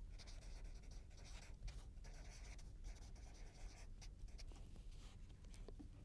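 Faint scratching of a marker pen writing on paper, a run of short pen strokes as words are written out.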